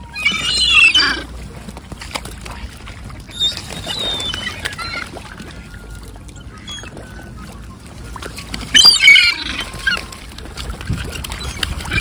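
Gulls squawking in loud bursts of harsh calls, once right at the start and again about nine seconds in, among scattered flutters and knocks from the jostling flock.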